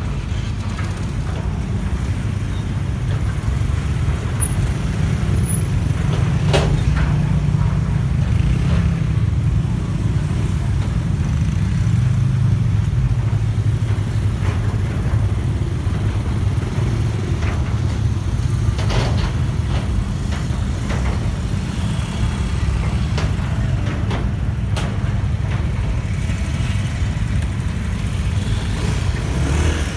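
Steady low engine rumble, with a few short sharp knocks.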